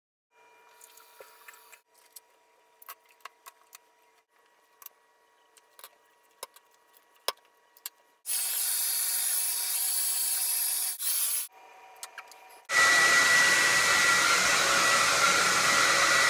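Light clicks and knocks of small objects being handled, then a loud hiss for about three seconds. Near the end a handheld hair dryer switches on and runs steadily, its motor whine over the rush of air.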